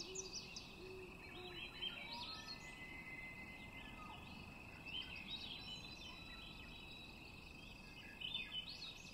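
Wild birds chirping now and then over a steady, high-pitched insect trill, a natural outdoor soundscape. A cluster of chirps comes near the end.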